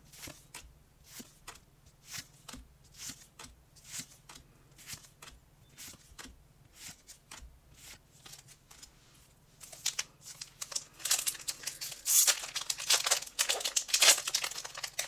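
Pokémon trading cards being flicked through one at a time, a soft snap about twice a second. About ten seconds in, the louder crinkling and tearing of a foil booster pack being ripped open.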